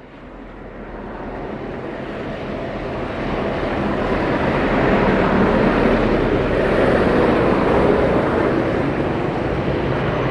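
Scoot Airbus A320neo with Pratt & Whitney geared turbofan engines flying past on landing approach: jet noise that swells over the first four seconds or so, then holds loud.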